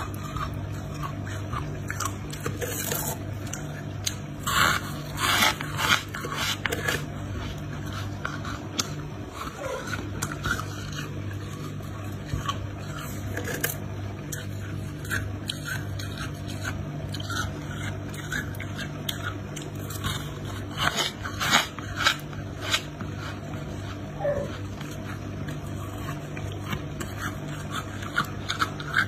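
Freezer frost being bitten and chewed, with clusters of sharp crunches a few seconds in and again about two-thirds through, and lighter scraping and crackling of frost between them. A steady low hum runs underneath.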